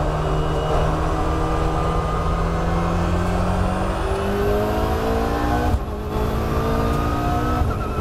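Race car engine heard from inside the cockpit, accelerating at full throttle with its note rising steadily. It is cut by two quick upshifts, about six seconds in and again near the end, each a brief dip before the revs climb again.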